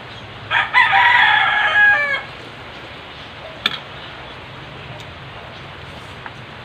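A rooster crowing once, loud and about a second and a half long, its pitch dropping at the end. A single sharp click follows a second and a half later.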